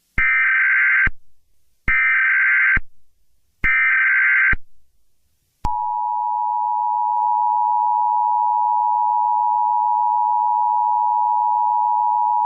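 Emergency Alert System SAME header: three identical one-second bursts of warbling data tones, followed about six seconds in by the EAS attention signal, a steady two-tone alarm that keeps sounding.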